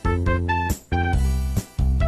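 Background music: an upbeat instrumental with keyboard-like notes over a steady bass, pausing briefly about every bar.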